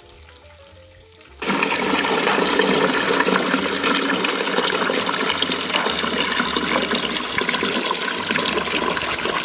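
Hot strike water pouring in a steady stream from a stainless brew kettle's spigot valve into a metal pot below, splashing into the water already in the pot. The pour starts suddenly about a second and a half in.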